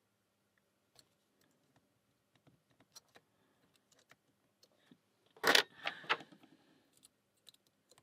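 Faint scattered clicks of lock picks working the rotating wafers of a Fichet Bauche M2 safe lock, then a short, loud metallic clatter with ringing about five and a half seconds in.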